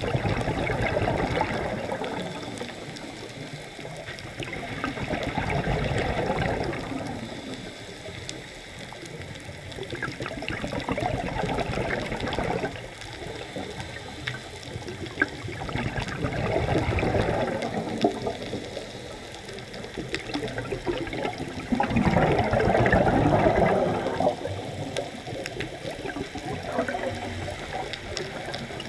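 Scuba regulator exhalation heard underwater: bursts of bubbling about every five to six seconds, with quieter stretches between breaths.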